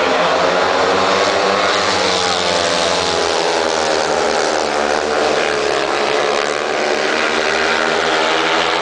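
Four speedway bikes' 500 cc single-cylinder methanol engines racing round the track, a loud continuous engine note whose pitch rises and falls as the riders throttle on and off through the bends.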